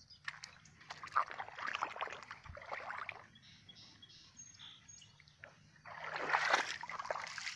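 Footsteps wading through shallow river water over a sandy bottom, splashing and sloshing in two spells of steps, the second near the end louder.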